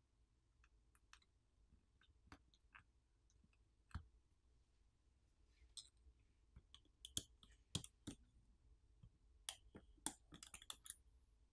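Small sharp clicks and taps of a plastic pry tool and fingertips on a smartphone's internal parts and frame as components are levered and handled. They are sparse at first, with one sharper click about four seconds in, then come thicker and louder in the second half.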